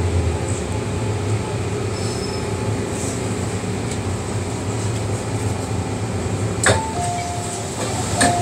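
Inside the passenger car of an MTR M-Train EMU, a steady low rumble as the train runs and pulls into the station. Near the end a sharp click, then a falling two-note chime, and another click with a chime tone just after.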